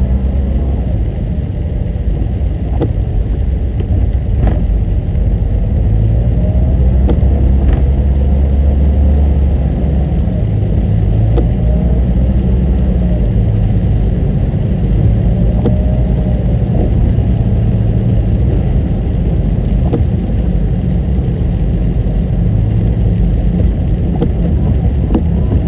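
A car driving steadily along a road: a continuous low rumble of engine and tyres, with a few faint clicks.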